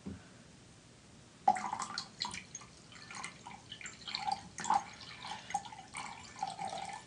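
Hydrogen peroxide poured in a thin stream from its bottle into a glass measuring cup: faint, irregular trickling and dripping that starts about a second and a half in.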